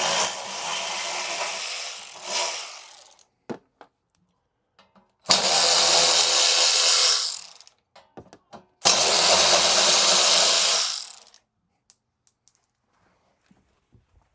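Power drill driving a T30 Torx bit, run in three bursts of two to three seconds each to back out the cover bolts on an air compressor regulator.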